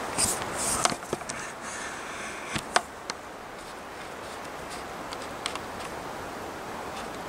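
Woodland ambience: a steady rushing hiss of wind through bare trees. A few crackles and sharp clicks sound in the first three seconds, the loudest a single snap near three seconds in.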